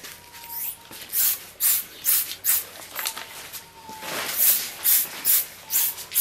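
Short hissing bursts repeating about twice a second, with a longer hiss about four seconds in.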